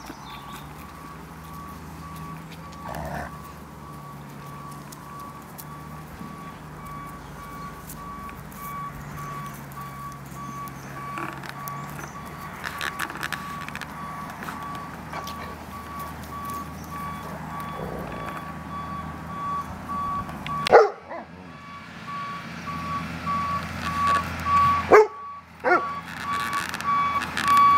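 A vehicle reversing alarm beeps on and on in an even, high pulsing tone. A dog barks a few times in the last third, louder than the beeping.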